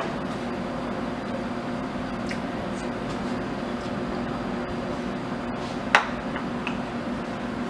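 A metal spoon clinks sharply against a bowl once at the start and again about six seconds in, with a few fainter ticks between. A steady low hum runs underneath.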